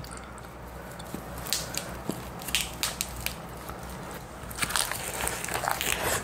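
Crisp lettuce and perilla leaves crinkling and chopsticks clicking lightly as raw fish is wrapped into ssam, with sharper crackles and crisp bites into the leaf wraps near the end.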